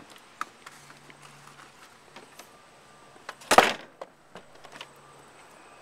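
Handling noise of a handheld phone being carried: scattered small clicks and rustles, with one loud short thump about three and a half seconds in.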